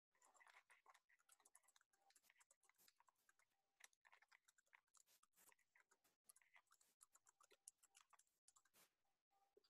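Near silence, with faint, scattered short clicks and ticks every second or so.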